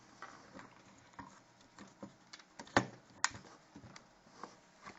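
Scattered clicks and knocks of a cordless drill being handled and set into a homemade spring-winding jig, with two sharper knocks about three seconds in. The drill is not running.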